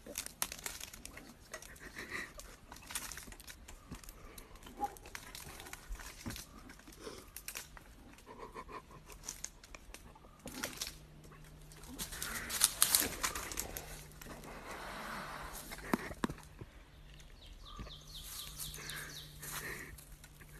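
Faint scratching and rustling as a black bear cub climbs the tree trunk and clambers at the edge of a tree stand, with soft breathing close by. A louder bout of rustling comes about twelve seconds in.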